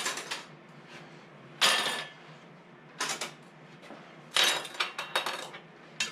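Metal canning lids clinking and clattering as they are lifted from a small pan and set down one by one on a plastic cutting board: a series of short metallic clatters about a second apart, with a quick run of them just before the end.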